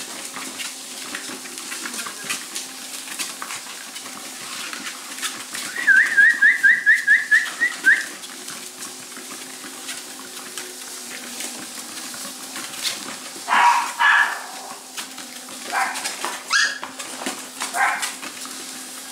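Miniature pinscher puppies scuffling and licking, with scattered small clicks throughout. A quick run of about nine high squeaks comes about six seconds in, and several short whines and yelps follow in the second half.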